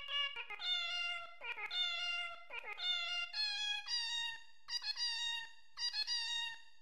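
Several cats meowing insistently over one another, a rapid string of short, high meows, begging for food.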